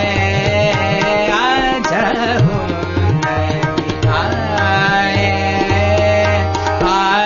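Male Hindustani classical vocalist singing a bandish in raag Nand, holding and bending long notes. Tabla keeps a medium-tempo ten-beat Jhaptaal cycle beneath the voice.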